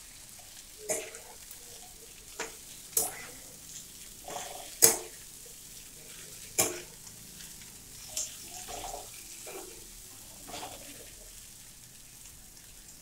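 Steel spatula scraping and knocking against a nonstick pan as poha (flattened rice) is stirred and fried, over a low frying sizzle. The strokes come every second or two, the loudest about five seconds in.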